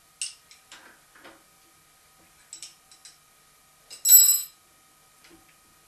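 Light clicks and clinks of steel hand tools being handled at a milling machine table. About four seconds in, a louder, briefly ringing metal clink, as a steel key or wrench is set down on the table. A faint steady high tone hums underneath.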